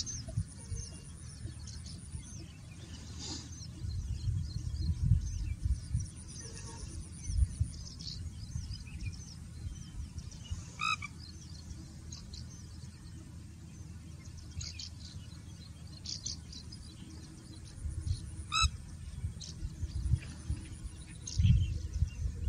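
Pheasant-tailed jacana calling repeatedly in short high notes, with two louder calls of several quick notes about eleven and eighteen seconds in. A low rumble comes and goes underneath.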